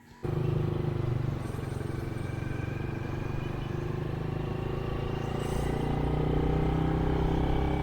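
Motorcycle engine running steadily while riding, with some wind noise, recorded through an action camera fitted with a wind muffler. It cuts in abruptly about a quarter second in, and the engine gets a little louder from about five seconds in.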